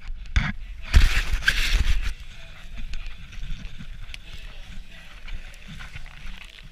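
A glove rubbing against the camera microphone makes loud rustling in about the first two seconds, then it drops to a quieter steady wind rumble.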